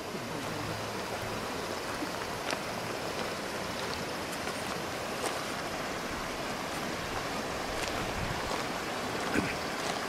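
Shallow river running over a stony bed: a steady rush of flowing water, with a few faint short ticks.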